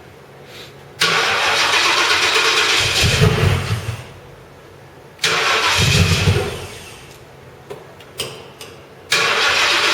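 Freshly rebuilt Ford Crown Victoria V8 being cranked on the starter three times, each attempt briefly catching with a deeper burst of running before dying away. The owners put the hard starting down to stale gasoline in the lines.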